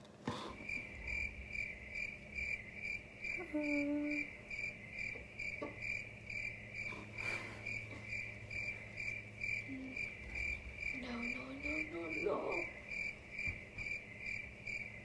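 Cricket chirping steadily, two or three chirps a second, over a low electrical hum. Twice a short hummed voice sound rises over it, about four seconds in and again around eleven to twelve seconds.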